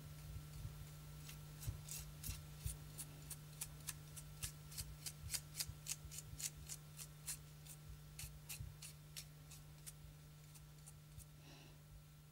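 A brush dabbing grisaille paint on a sheet of glass, each stroke a faint, sharp tap of the bristles on the glass, about three a second, stopping near the end. A low steady hum runs underneath.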